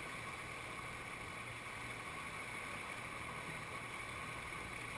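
Steady rush of whitewater from a river wave churning over a rock ledge.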